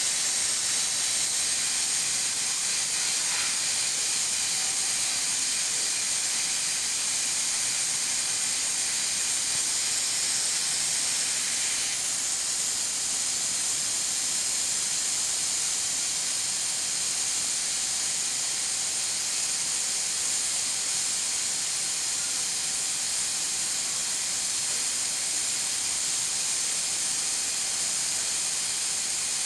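Pressure cooker venting steam through its weighted valve, a steady high hiss with a faint whistling tone in it.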